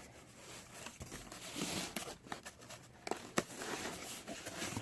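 Packaging rustling and crinkling as boxed ceiling-fan parts are handled, with a few sharp light clicks and taps scattered through.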